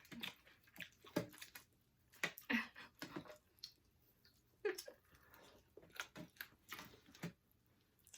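Close-up eating sounds of fried chicken being chewed, with scattered lip smacks and wet clicks and a few brief murmurs.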